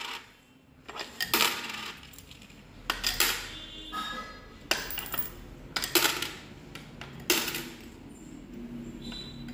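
Coins clinking as a child handles them and drops them into a plastic toy piggy bank: a string of sharp metallic clicks, some followed by a short ring.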